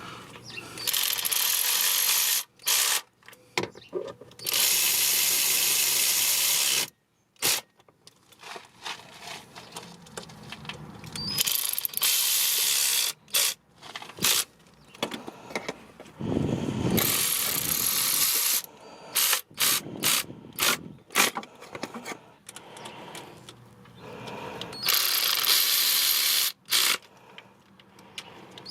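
Hand ratchet wrench clicking in repeated runs as cover bolts are tightened down, each run stopping abruptly, with short pauses between them.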